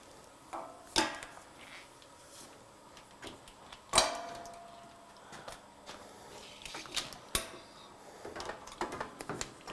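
Knocks and clatter of objects being picked up and moved. The loudest is a sharp metal clank with a brief ring about four seconds in, and a run of light clicks comes near the end.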